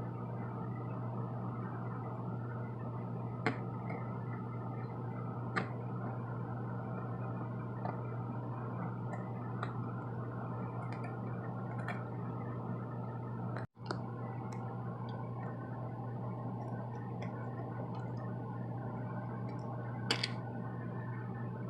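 Steady low electrical hum from a ceiling fan and light fixture, with a few light clicks. The hum cuts out for an instant about two-thirds of the way through.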